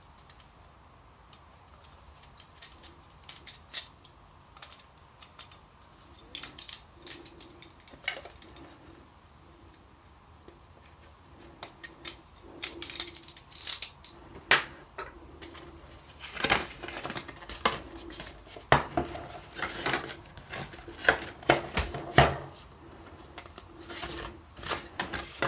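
Cardboard and plastic packaging being handled and pulled off a plastic storage case: scattered crinkles, scrapes and light clicks. They are sparse at first and come thick and fast from about two-thirds through, as the paper sleeve comes off.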